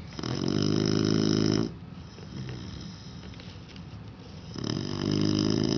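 A sleeping pet snoring: two long snores, each about a second and a half, about three seconds apart.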